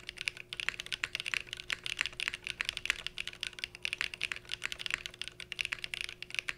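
Fast typing on a Cycle 8 custom mechanical keyboard with Ice Cendol switches and GMK Lime keycaps, bean-mounted with no case foam: a quick, unbroken run of sharp key clacks. The typist hears more resonance in two of the rows in this build.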